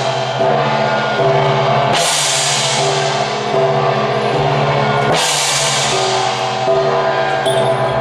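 Loud accompaniment music for a temple-procession troupe: percussion with a cymbal crash about every three seconds, twice here, each ringing away over held notes.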